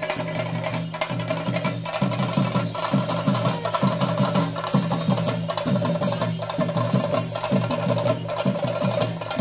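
Chenda drums beaten with sticks in a fast, continuous rhythm, with stronger accents about once a second. A steady held tone sounds underneath.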